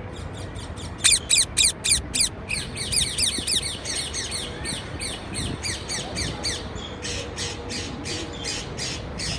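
Parakeet giving rapid series of short, sharp squawking calls. A run of five loud calls comes about a second in, then a fast chatter of about four or five calls a second.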